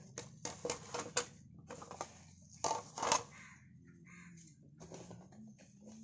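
Cardboard QR code stands and plastic-sleeved stickers being handled and set down on a glass counter: rustling with a few sharp clacks, loudest about a second in and again about three seconds in.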